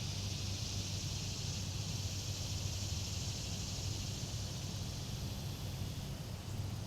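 Steady outdoor background noise: a constant low hum under an even high-pitched hiss, with no distinct events.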